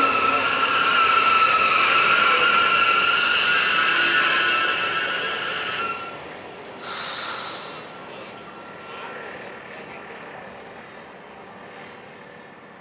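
Train arriving and braking to a stop, its wheels squealing in several steady high tones that die away about six seconds in. About a second later comes a loud hiss lasting about a second, then only a faint rumble that fades.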